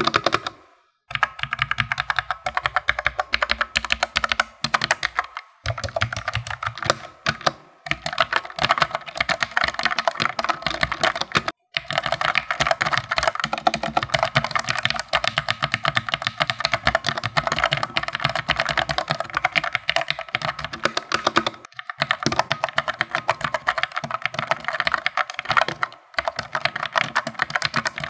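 Fast typing on an Armaggeddon SMK-12R low-profile mechanical keyboard with Outemu Black linear switches: a rapid, continuous clatter of keystrokes, broken by a few short pauses.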